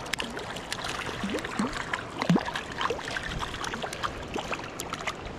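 Small stream running, with scattered sharp splashes and gurgling plops of water. The loudest plop comes a little past two seconds in.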